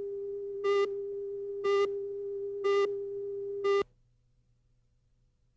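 Countdown leader tone: a steady mid-pitched hum with a brighter beep once a second, four beeps in all. It cuts off suddenly about four seconds in, leaving silence.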